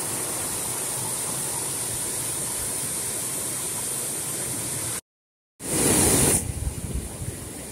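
Water rushing steadily over the concrete spillway of an overflowing irrigation tank. About five seconds in the sound cuts out for half a second, comes back with a short louder burst, then settles into a quieter rush of water.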